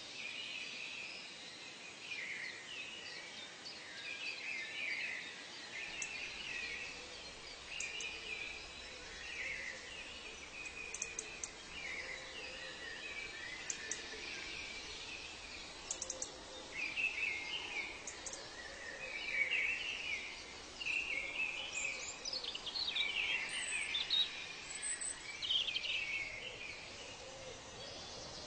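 Many birds chirping and calling at once in an outdoor nature recording, short overlapping calls over a faint steady hiss, growing busier and louder in the second half.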